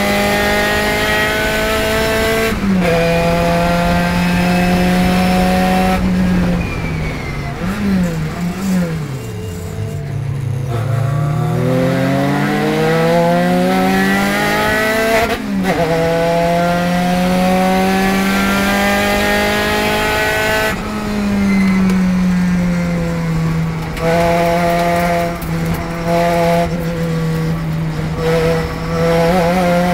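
Spec Racer Ford's engine heard from the cockpit under racing load: it holds steady high revs on the straight, falls and wavers as the car brakes and downshifts for a corner, then climbs again. Each upshift shows as a sudden drop in pitch, the clearest about half way through.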